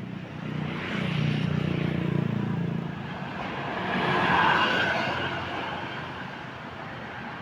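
Road vehicles passing close by: a low engine rumble swells about a second in, then a louder rush of tyre and road noise peaks around four to five seconds in and fades away.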